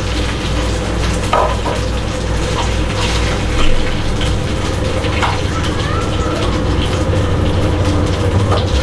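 Coconut oil sizzling steadily in a nonstick frying pan as fried chicken pieces are lifted out, with a few short clinks and scrapes of a steel spoon against the pan, over a steady low hum.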